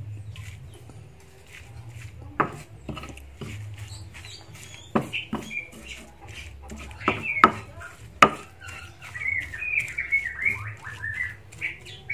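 Stone pestle grinding and knocking in a stone mortar (cobek) as grilled fish and chilli paste are crushed into sambal, with several sharp knocks, the loudest about seven and eight seconds in. Songbirds chirp in the background, most in the last few seconds.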